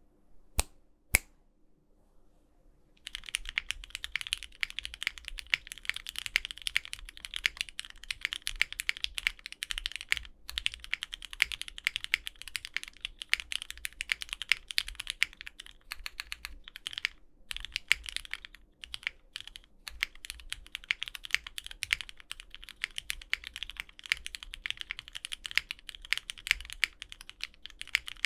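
Mechanical keyboard typed on quickly: a Bakeneko60 with lubed Hyperglide Cherry MX Black linear switches on an aluminum plate and GMK keycaps, giving a super crisp, full clack with some hollowness from the unfoamed case. Two single key clicks come first, then steady fast typing starts about three seconds in, with a few brief pauses.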